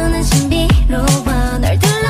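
K-pop girl-group song: female voices singing Korean lyrics over an electronic beat, with sharp drum hits and a bass that slides down in pitch again and again.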